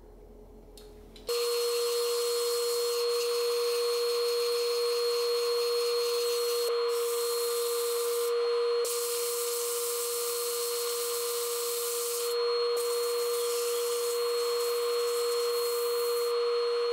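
Wood lathe running with a steady whine while a turning tool cuts the spinning wood in a continuous hissing scrape. The scrape drops out briefly a few times.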